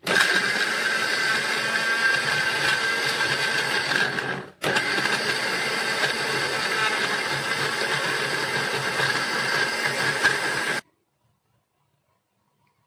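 Countertop blender motor running, grinding shallots, garlic, ginger and spice powders into a paste, with a steady whine over the churning. It stops for a moment about four and a half seconds in, runs again for about six seconds, then cuts off.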